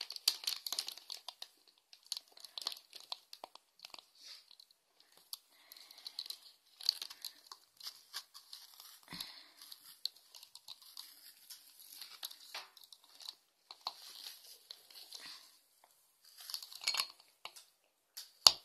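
Hard clear plastic figure stand being handled and fitted onto a small toy figure: scratchy plastic rustling and many small clicks, with a sharper click near the end as the parts snap together.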